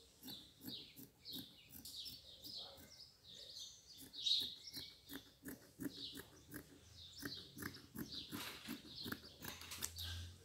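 Large dressmaker's scissors cutting through thin knit fabric: a steady run of quick snips and blade clicks.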